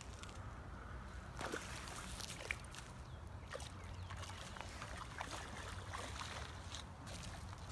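A hooked largemouth bass splashing and thrashing at the pond surface while it is played on the rod, with scattered short splashes and water sloshing over a steady low rumble.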